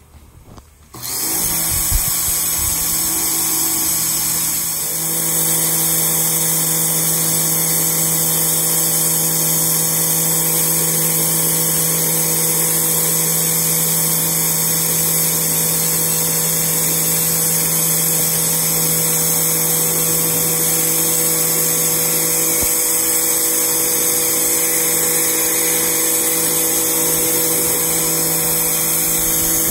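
Sun Joe SPX3001 electric pressure washer switching on about a second in and running steadily: a motor-and-pump hum with a high hiss, briefly dipping about four seconds in.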